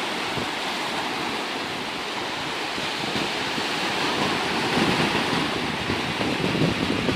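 Sea surf breaking and washing up the sand in a steady wash of noise, with wind buffeting the microphone in low gusts that grow stronger in the second half.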